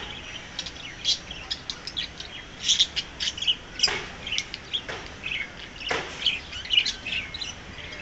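Budgerigars chirping: a quick, irregular run of short, high chirps.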